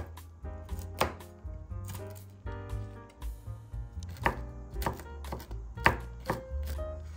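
Chef's knife chopping walnuts on a wooden cutting board: a run of irregular, sharp knocks of the blade against the wood, a few of them louder than the rest.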